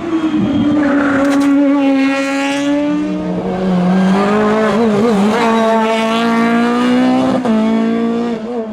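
Race car engine running hard at high revs, its pitch holding steady, then dropping a step about three seconds in and breaking again near the end.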